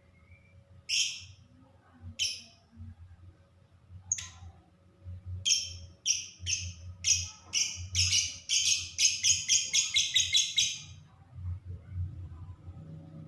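Lovebird giving short, high-pitched chirping calls: a few single calls, then from about five seconds in a run that quickens to about four calls a second and stops near the end.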